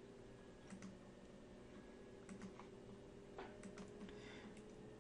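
Near silence: a few faint, scattered computer clicks over a low steady hum.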